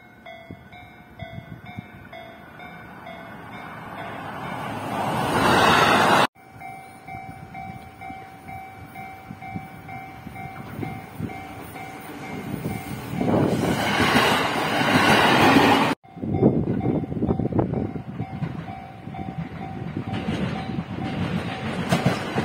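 Japanese level-crossing warning bell ringing with a steady repeating ding while electric commuter trains approach and pass. The train noise swells to its loudest as each one goes by. The sound cuts off abruptly twice as one clip gives way to the next.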